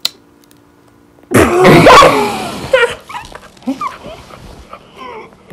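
A sharp click at the start, then about a second in two teenage girls burst into loud shrieking laughter, followed by higher squealing giggles.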